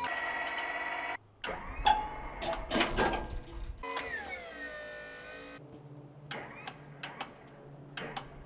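Motor of a truck-mounted service crane whining as it lifts an air compressor. Its pitch rises as it starts and falls away as it stops, among metal clanks and knocks.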